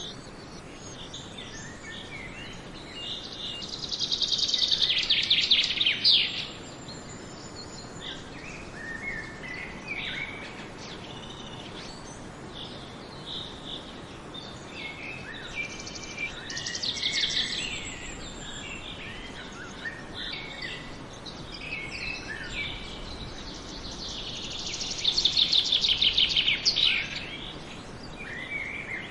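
Several songbirds singing and chirping, with one bird repeating a loud, rapid trilled song phrase three times: about four seconds in, midway, and near the end.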